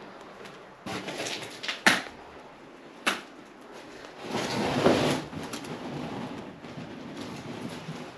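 Knocks and scrapes of people moving and handling things in a cluttered room: rustling, two sharp knocks about two and three seconds in, and a longer scraping shuffle a little after four seconds.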